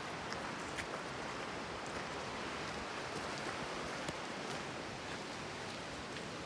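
Steady rush of flowing creek water, with a few faint scattered clicks over it.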